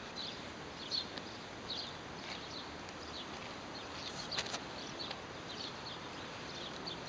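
Faint, scattered bird chirps, short and high, every second or so over a steady hiss of outdoor background noise.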